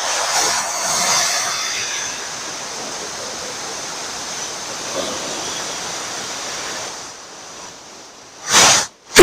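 A large rubber balloon being hugged and pressed, giving a steady rubbery rustling. Near the end there is a louder squeeze, then a sharp, very loud bang as the balloon bursts.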